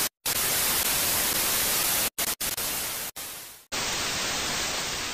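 Analog TV static sound effect: a steady hiss of white noise that cuts out for a split second a few times and then carries on.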